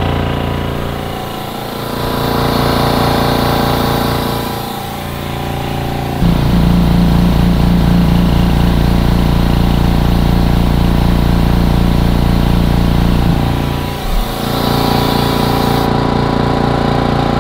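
Air Venturi two-stage high-pressure air compressor running steadily with its cooling fans on, pumping air to fill a transfer tank. It gets louder and heavier from about six seconds in until about thirteen seconds in.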